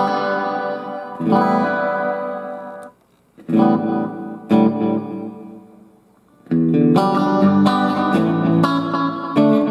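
Electric guitar played through a Fender Super Champ XD tube combo amp with its digital effects on. Three chords are struck and left to ring and fade, with brief silent gaps between them, then quicker, busier playing starts about six and a half seconds in.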